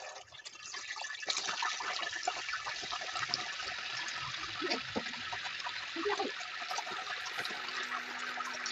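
Raw chicken pieces frying in hot oil in a stainless-steel pan, a dense sizzle with scattered pops. The sizzle starts as the first piece goes in and gets louder about a second in as more pieces are added.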